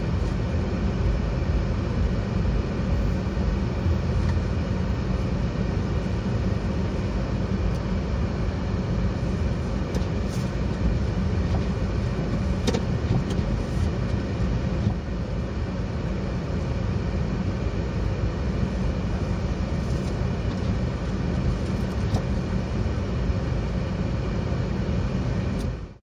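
Steady low rumble of a car's engine and tyres on a snowy road, heard from inside the cabin.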